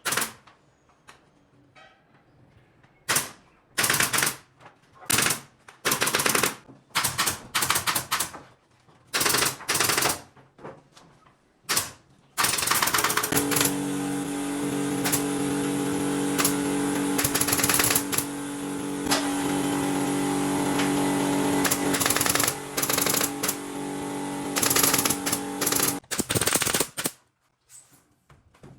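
A pneumatic nail gun firing in quick bursts of sharp shots. From about twelve seconds in, a steady motor hum runs for some fourteen seconds under further shots, then cuts off.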